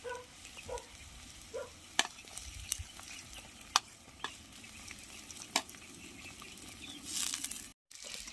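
Food frying in oil in a steel wok over a wood fire: a low sizzle broken by a few sharp clicks as sliced onions are spooned in off a plate. Near the end there is a louder rush of sizzling and stirring that cuts off abruptly.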